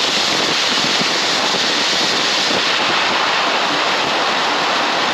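A loud, steady rushing hiss that runs without breaks or bangs.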